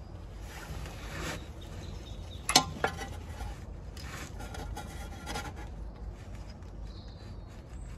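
Rubbing and scraping of gloved hands and a work-jacket sleeve close by as a thin spacer washer is fitted behind the rear ABS wheel-speed sensor's bolt, with two sharp clicks about two and a half seconds in.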